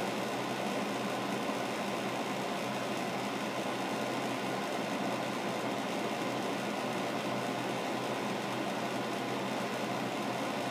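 Steady background room noise: an even hiss with a low, constant hum and no distinct events.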